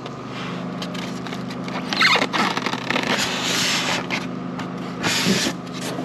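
Styrofoam packing insert scraping and rubbing against a cardboard box as it is worked loose and lifted out, in several scrapes with the longest about halfway through, over a steady low hum.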